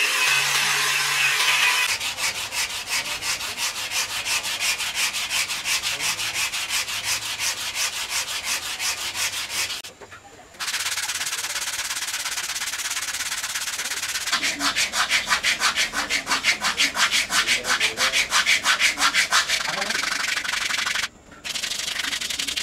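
A power sander runs steadily for about two seconds, then gives way to sandpaper rubbed back and forth by hand over carved wood in quick, even strokes, about four or five a second. The rubbing breaks off briefly twice.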